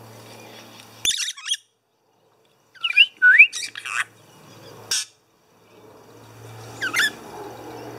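Lorikeets giving short shrill squawks and chirps in separate bursts, some with quick rising whistles: one about a second in, a cluster around three to four seconds, then single calls at about five and seven seconds.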